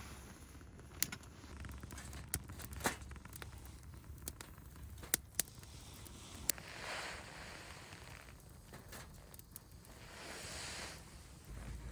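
Wood fire crackling in a TOKYO CRAFTS Macrite 2 fire pit, with scattered sharp pops, and two brief rushing swells of noise in the second half.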